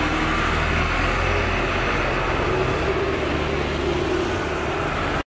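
JCB backhoe loader's diesel engine running steadily as the machine drives along. The sound cuts off suddenly near the end.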